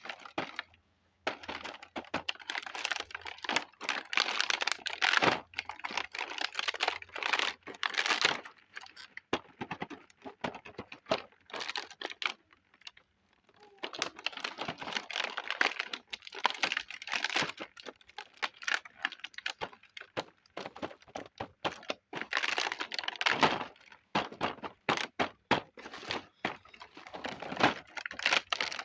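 Small plastic toy kitchen pieces clicking and tapping as they are handled, with stretches of crinkling plastic packaging.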